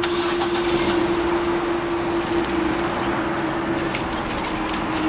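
Level crossing audible alarm sounding one steady tone as the barriers rise, over the hum of road traffic.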